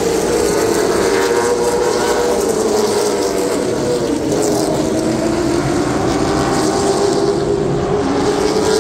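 Late Model stock car V8 engines running at racing speed around the oval, a steady engine note that dips slightly midway and climbs back as the cars pass.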